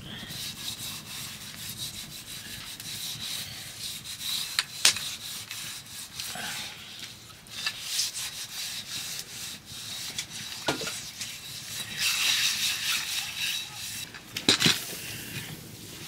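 A hand rubbing a wet ash paste over the outside of an aluminium pressure cooker: a steady scratchy rubbing, louder about twelve seconds in, with a few sharp knocks of the metal pot, the clearest about five seconds in and near the end.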